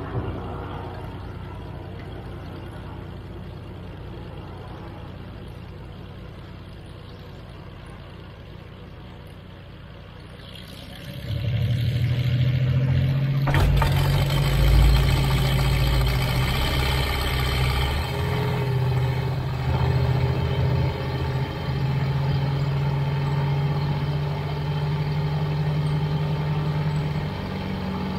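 Flight Design CTSW's Rotax 912 flat-four aircraft engine starting about eleven seconds in and settling into a steady idle with its propeller turning. Before the start there is only a quieter low engine drone in the background.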